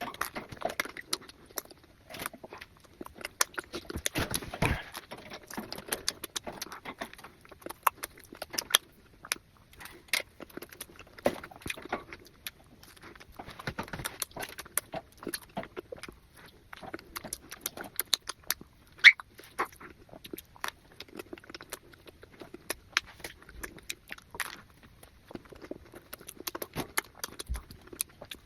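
A person eating avocado and eggs close to the microphone: irregular wet chewing and smacking with many small mouth clicks.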